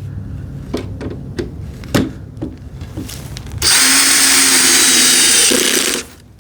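A few handling knocks, then a cordless drill/driver runs steadily for about two seconds, driving a screw that pulls the cabinet's back panel tight as a clamp during glue-up, and stops abruptly.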